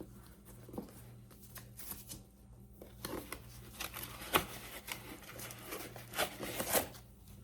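Rustling, scraping and light clicks of a leather handbag being handled and its inside compartments opened, busiest in the second half.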